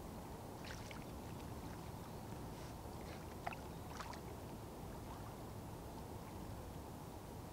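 Eurasian otter surfacing in a slow river: a few faint, short splashes and drips of displaced water, the sharpest about three and a half to four seconds in. Under them runs a steady low hum of distant road traffic.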